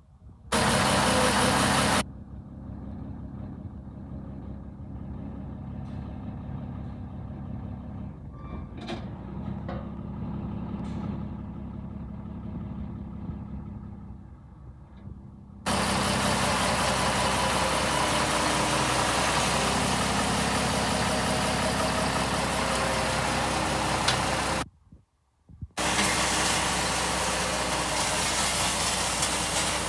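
Scania 111 truck's straight-six diesel engine idling steadily. Loud rushing noise covers it for a moment near the start and again from about halfway on, with a brief gap.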